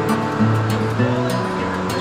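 Background music with held notes and a steady beat, with a steady hiss of rain underneath.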